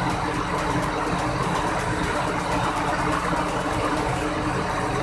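Diesel engine of a large intercity coach bus idling steadily.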